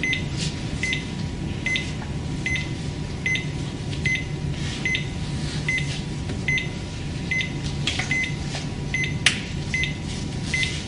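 Cardiac monitor beeping once per heartbeat: a short high beep about every 0.8 seconds, over a steady low hum. A few clicks from handling the electrodes and lead wires, one sharper near the end.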